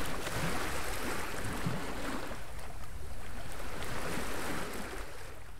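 Waves and wind on a beach: a steady rushing surf noise that swells and eases, a little quieter near the end.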